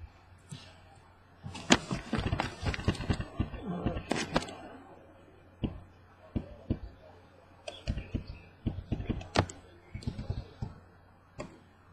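Irregular clicks, taps and knocks of objects being handled on a desk, densest about two to five seconds in and scattered after, over a faint steady low hum.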